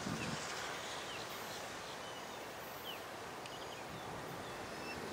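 Faint steady outdoor background hiss with a few short bird chirps scattered through it.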